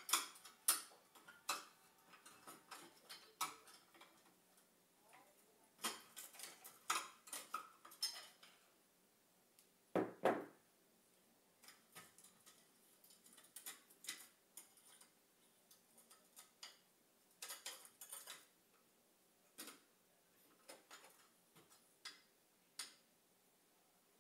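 Small ornaments and plant pots clinking, tapping and knocking as they are picked up, wiped with a cloth and set back down on a windowsill, with a duller knock about ten seconds in.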